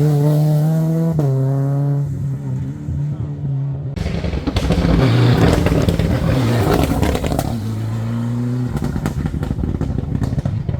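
Rally car engine revving hard, its pitch jumping about a second in, then falling away after about two seconds. A rougher, noisier pass of engine follows from about four seconds, with a brief engine tone near eight seconds and sharp crackles near the end.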